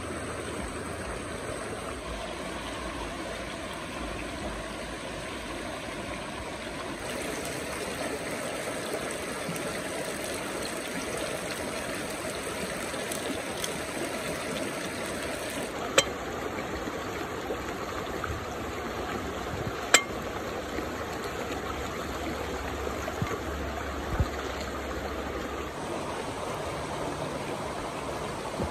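Shallow, fast-flowing forest stream rushing steadily over rocks. Two sharp clicks stand out in the second half, with a few fainter ones after them.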